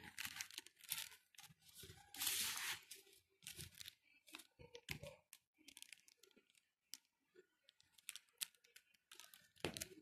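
Plastic packaging crinkling and a charging cable and phone being handled on a table: scattered short rustles and clicks, the loudest rustle about two seconds in.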